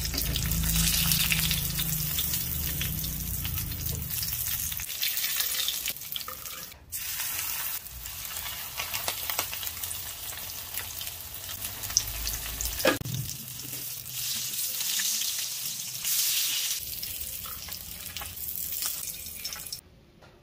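Breaded fish frying in hot oil, a steady sizzle and crackle, with a brief break partway and cutting off suddenly near the end.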